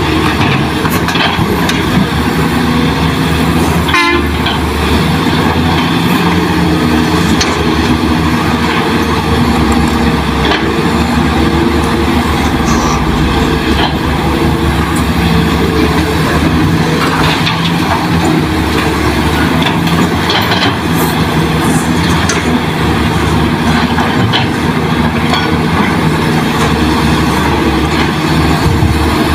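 Hydraulic excavator diesel engines running steadily as they dig and load soil into dump trucks. A brief rising squeal about four seconds in.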